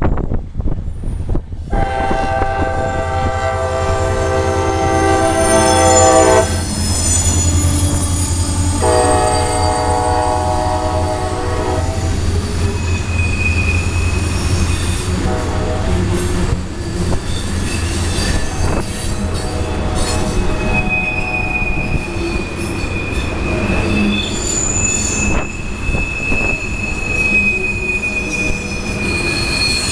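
Diesel locomotive's horn blowing two long blasts over the low rumble of the engine in the first twelve seconds or so, then the steel wheels of loaded ethanol tank cars squealing with high, steady shrieks as the train takes a sharp curve fast.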